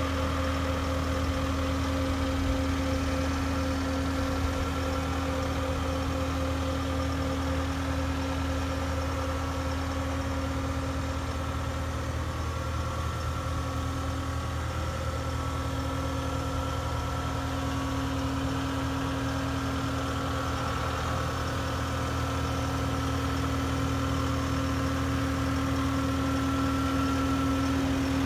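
Caterpillar 239D compact track loader's four-cylinder diesel engine idling steadily, a constant low drone with a steady hum.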